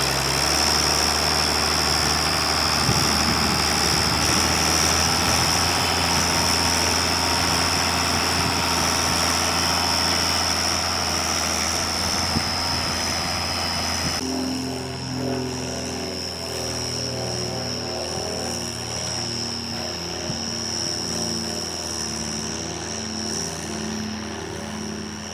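Case International 956XL tractor's diesel engine working steadily under load while pulling a mounted plough, with a steady high whine over the engine note. About halfway through the sound changes abruptly: the hiss drops away and the engine's pitched note stands out more clearly.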